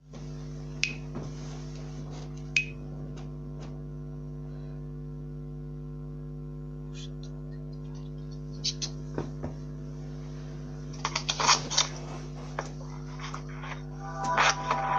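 Steady electrical mains hum with a few sharp clicks and knocks, and a flurry of knocks and rustles about eleven seconds in. Music starts right at the very end.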